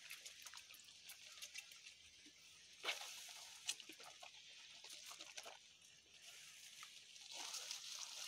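Faint rustling of curry leaf foliage being handled, with scattered light ticks and crackles of leaves and twigs.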